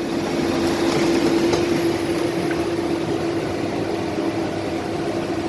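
Komatsu D70LE crawler bulldozer's diesel engine running under load as it drags a very large log, a steady drone with a constant tone, slightly louder in the first couple of seconds.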